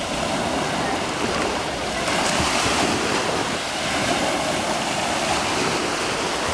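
Small waves washing up over sand at the water's edge, a steady surf hiss that swells about two seconds in, with wind buffeting the microphone.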